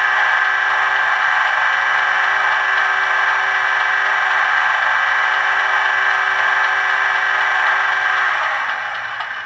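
Class 50 diesel fuel lift pump sound effect from a TTS sound decoder, played through a model locomotive's small speaker: a steady electric hum that cuts off about a second before the end.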